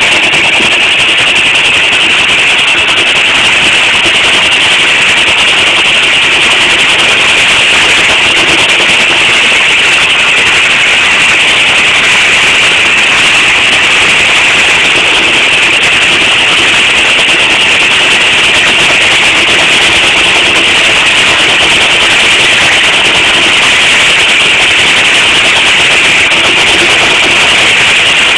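Half-scale Case 75 steam traction engine working under belt load, driving a full-size sawmill: a loud, steady din of the engine and the saw running.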